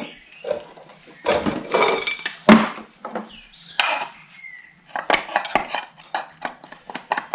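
Metal tools and engine parts clinking and knocking as they are handled and set down, some knocks ringing briefly, with a run of quicker small clicks in the second half.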